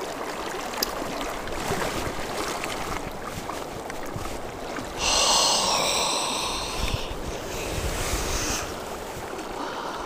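Rushing river water swirling around a wading angler, with wind buffeting the microphone. About five seconds in, a louder rush of splashing water lasts about three and a half seconds as the landing net is worked at the surface.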